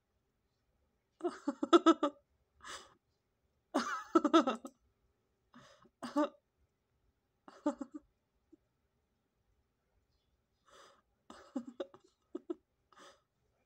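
Short bursts of a person's voice, several in a row separated by silent gaps, with the loudest bursts a few seconds in.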